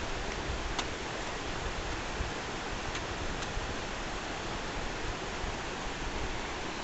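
Steady rushing of flowing river water, with a few faint clicks: one about a second in and two around three seconds in.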